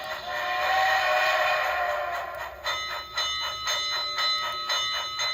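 Model steam locomotive's ESU sound decoder playing through a small speaker in a pill-bottle enclosure: a long chime-whistle blast, then from about two and a half seconds in, steady exhaust chuffs at about three to four a second.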